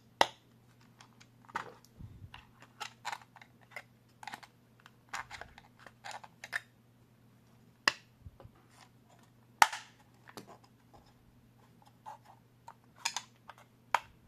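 Hard 3D-printed plastic parts clicking and knocking together as a battery mount is pressed down into the slots of a small 3D-printed chassis and handled. The clicks are irregular and scattered, with a few sharper, louder ones and a quick cluster near the end.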